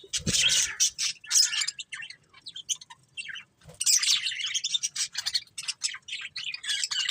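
Budgerigars chirping and chattering: rapid high-pitched calls and squawks, thinning out briefly in the middle before picking up again.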